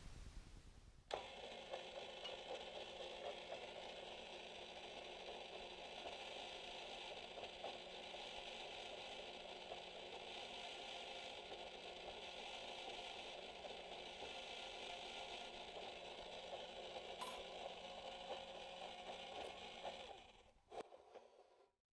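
TIG welding arc, striking with a sharp crackle about a second in, then a steady buzzing hiss with a low hum beneath it, cutting off near the end.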